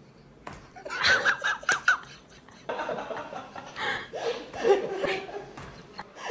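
A person laughing in short repeated bursts, with a few breathy snickers.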